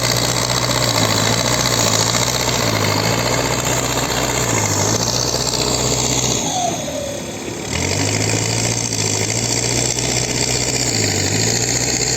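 Heavy diesel machinery working on railway restoration: a loud engine running with a dense rattle over it, its note dipping every couple of seconds as the load changes. It eases off briefly a little past halfway, then picks back up.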